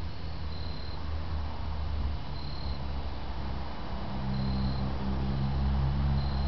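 Nissan 300ZX (Z32) V6 and drivetrain running: a low drone that grows louder about four seconds in, taking on a steadier pitched hum. A short high tone repeats about every two seconds over it.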